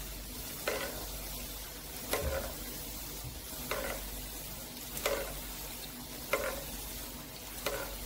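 Yeast-dough ball frying in shallow oil in a nonstick pan over low heat, with a steady sizzle. A metal spoon ladles the hot oil over its top about every second and a half, each scoop a short clink and splash, six times.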